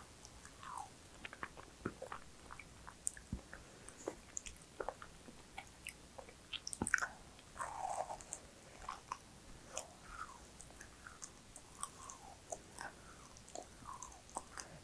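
A person biting and chewing a macaron: a run of short crackles and clicks from the shell and mouth, with the loudest bite about halfway through.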